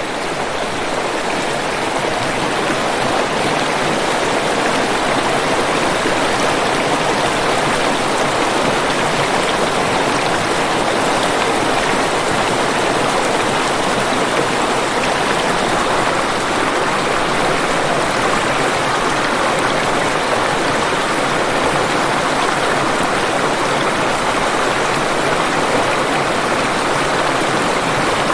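Waterfall: a steady, dense rush of falling water, fading in over the first couple of seconds and then constant.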